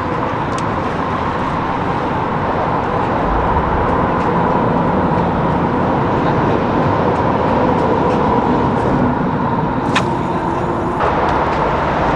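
Steady road traffic noise from vehicles crossing the highway bridge overhead, with a brief high hiss about ten seconds in.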